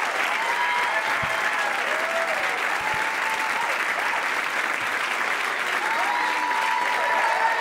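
Audience applauding steadily, with scattered cheers and whoops rising above the clapping, as a performer is welcomed to the stage.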